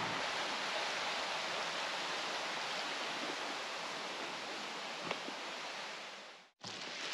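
Small rocky river running: a steady rushing hiss of water over stones that fades a little and cuts off suddenly near the end.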